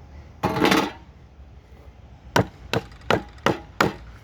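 Cedar splitting with a brief splintering crack under a hatchet, then the hatchet chopping into the cedar block five times in quick succession, about three blows a second.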